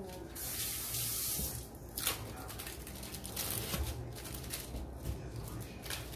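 Kitchen sink faucet running as hands are rinsed under it, shut off about a second and a half in, followed by a few light clicks and knocks.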